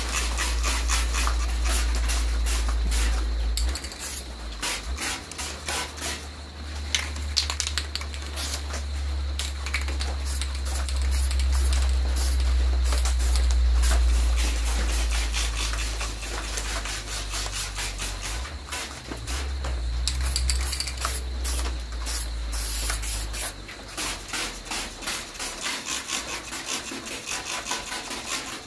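Aerosol spray-paint can hissing in short bursts against the sheet-metal truck cab, dabbing on patches of paint. A strong steady low rumble sits under it and stops about 23 seconds in.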